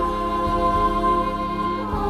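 Song music: one long held note over steady chords.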